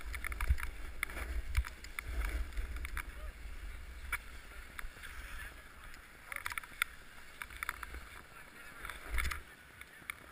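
A snowboard sliding and scraping over groomed snow, with a low wind rumble on the rider-mounted camera's microphone and a few sharp edge scrapes. The rumble stops near the end as the rider slows.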